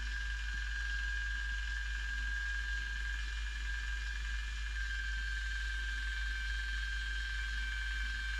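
YoLink valve operator's electric gear motor running with a steady high whine as it slowly turns the water main's ball valve closed.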